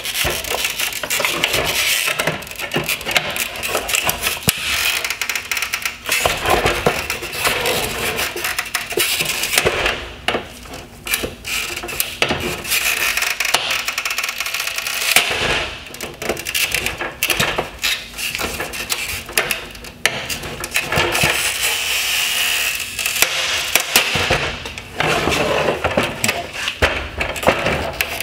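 Plastic chrome trim and black bezel of a 2017 Mercedes-Benz C-Class LED headlight squeaking and creaking as the trim is forced off its plastic retaining tabs, in long stretches with short pauses.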